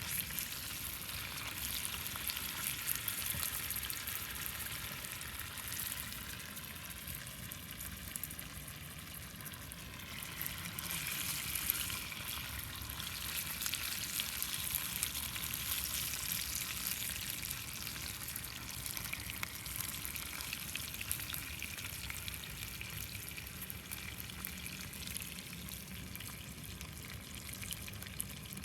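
Food frying in a pan over a small wood fire, a steady sizzle full of fine crackles.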